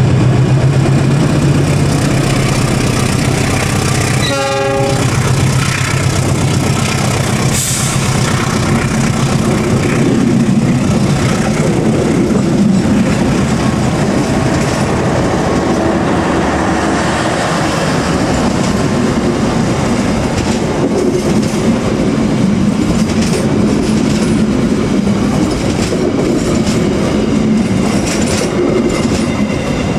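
A KAI CC206 diesel-electric locomotive runs past, its engine drone fading over the first few seconds, with a short horn blast about four seconds in. Then a long rake of passenger coaches rolls by, wheels clacking steadily over the rail joints.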